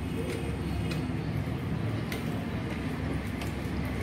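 Steady low background rumble, with a few faint clicks and clinks as a hand works a spice marinade into rohu fish steaks on a ceramic plate.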